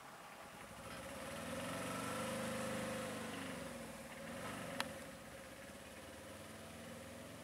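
Tata Ace mini truck's engine pulling away, rising in pitch and loudness over the first few seconds, dropping back about four seconds in, then running steadily. A single sharp click comes about five seconds in.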